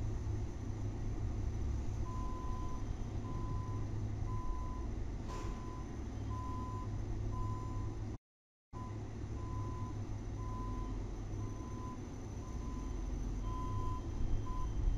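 A vehicle's reversing alarm beeps a single steady tone about once a second over a low engine rumble. The audio cuts out completely for about half a second partway through.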